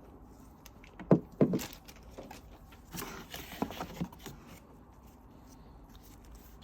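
Laptop packaging being handled during unboxing: a few sharp knocks about a second in, a brief rustling slide about three seconds in, then two light taps.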